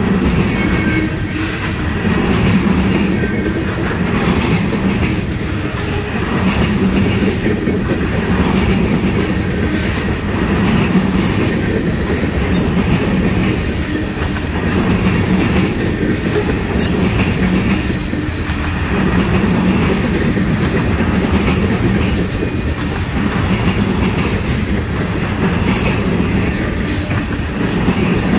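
Loaded trash train's container cars rolling past on the near track: a steady rumble of steel wheels on rail with clickety-clack as the wheel sets cross rail joints, swelling and easing about every two seconds as each car goes by.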